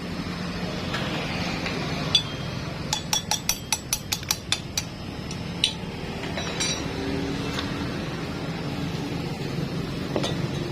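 Metal tools and engine parts clinking: a quick run of about ten sharp metallic clicks a little before the middle, with a few single clicks before and after, over a steady low hum.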